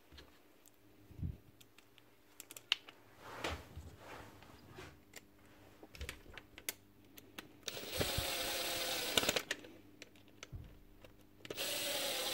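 Scattered clicks and knocks of small metal parts being handled, then a small battery-powered motor runs steadily for about a second and a half and starts up again near the end.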